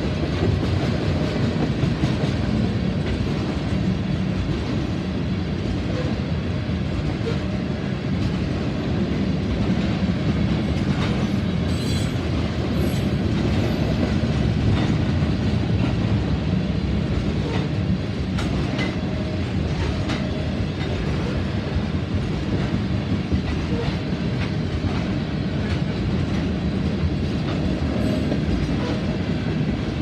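Freight train of oil tank cars rolling steadily past, a constant rumble with the wheels clicking over the rail joints.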